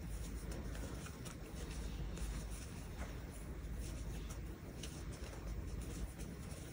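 Soft rustling and faint irregular scratches of thick cotton yarn being worked with a crochet hook, the hook pulling loops through the stitches.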